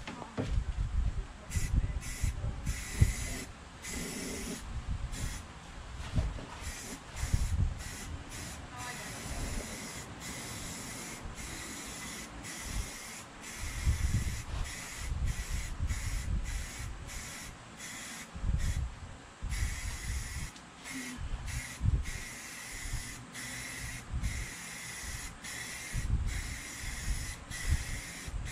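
Aerosol spray paint can spraying white paint in many short bursts: a hiss with a faint whistle that starts and stops again and again. Low bumps and rumbles sound underneath.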